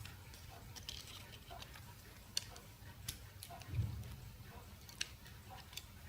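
Faint scattered clicks and light taps of a phone's main circuit board being worked loose and lifted out of its housing, with a soft low thump about four seconds in.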